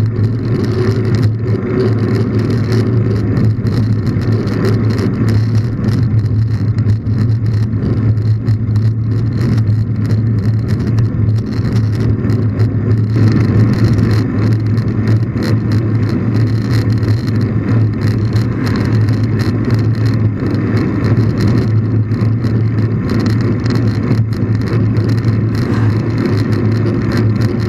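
Steady rumble of wind on the microphone and a knobby mountain-bike tyre rolling on asphalt, heard from a camera mounted on a moving bicycle.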